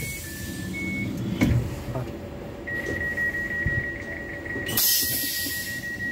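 Train carriage door's closing warning: a couple of short high beeps, then a steady high tone from about halfway through. A burst of air hiss comes near the end as the sliding door starts to close.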